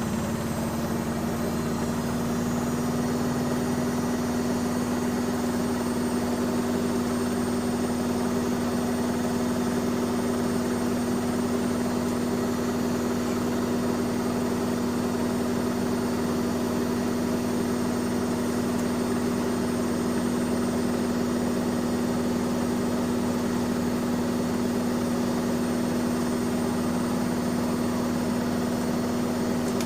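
Bauknecht Super Eco 6413 front-loading washing machine spinning at a steady high speed, its motor giving a steady, even hum.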